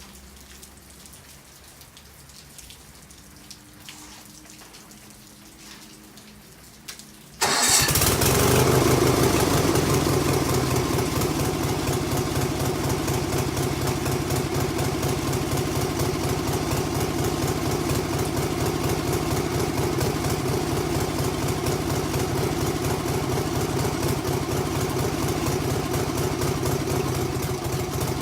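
Stump grinder's engine starting about seven seconds in, catching abruptly and then running steadily and loudly.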